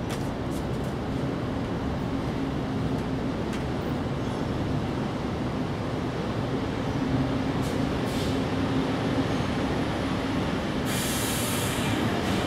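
Steady low rumble of background machinery or traffic with a faint hum, and a brief hiss near the end.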